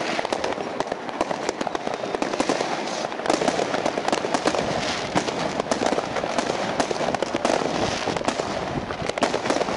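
Many fireworks and firecrackers going off at once: a continuous, dense crackle of bangs with no single blast standing out.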